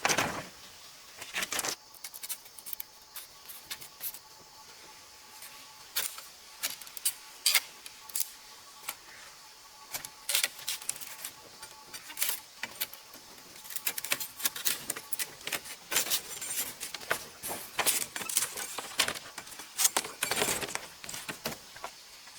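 Irregular sharp clicks and clinks of hard objects knocking together, coming in clusters with short gaps.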